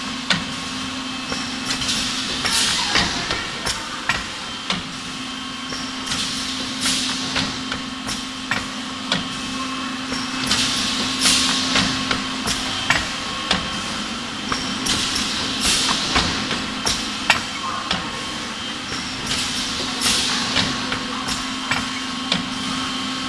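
Chocolate ball lollipop making machine running: metal mould plates clatter along the conveyor with many sharp clicks and knocks over a steady hum, and bursts of hiss come every few seconds.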